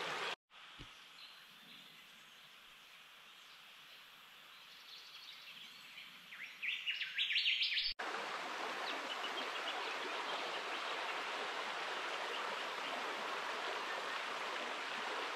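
A bird gives a quick run of high chirps about seven seconds in over quiet bush. Then, from about eight seconds in, the steady rush of a shallow river rippling over a stony bed.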